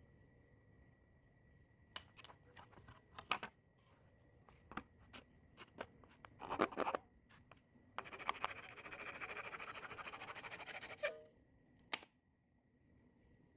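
Scattered handling clicks and knocks, then about three seconds of steady, rapid scratching that stops suddenly, followed by a single knock.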